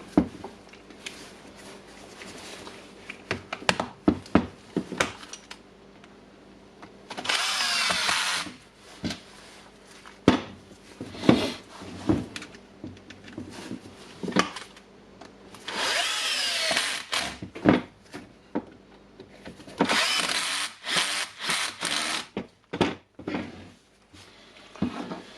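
Electric screwdriver turning screws in three short bursts of a second or two each, its motor pitch sliding as the screw seats, with clicks and knocks of plastic housing parts being handled between bursts.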